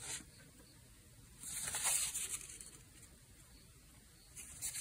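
Watercolor paintbrush stroking across textured watercolor paper: a brief, soft hiss about a second and a half in, and a fainter one near the end.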